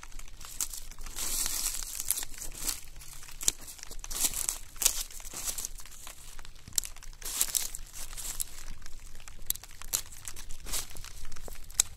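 Dry, dead strawberry leaves and stems crackling and rustling against black plastic mulch film as they are pulled and snipped away with scissors. The sound comes in irregular bursts, with a few sharp clicks among them.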